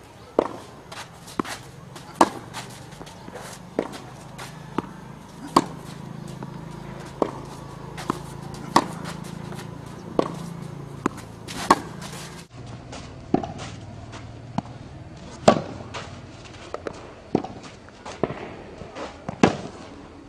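Tennis ball struck by rackets in a baseline rally on a clay court: a sharp pop every one and a half to two seconds, with softer ball bounces between.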